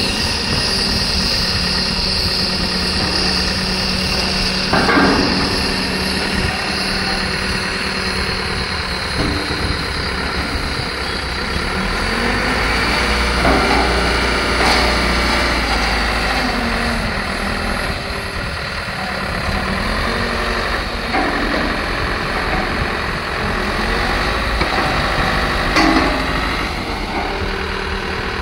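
Engine of a rail-mounted mobile crane running steadily while it holds an electrification mast, with a few short metallic knocks.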